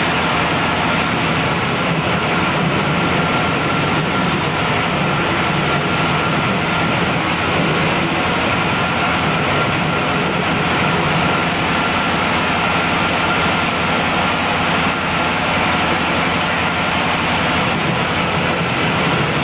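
Motor-driven grinding machine running steadily: a constant loud mechanical noise with a low hum and a thin steady whine.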